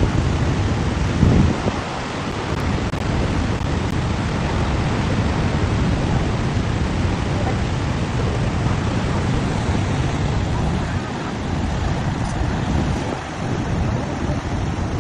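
Steady roar of rushing water from Niagara Falls, with wind buffeting the microphone in gusts near the start.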